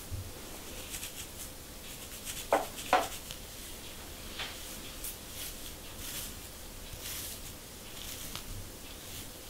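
Comb scratching across a dandruff-flaked scalp in short, repeated scratchy strokes, with two sharp, louder clicks close together about two and a half seconds in.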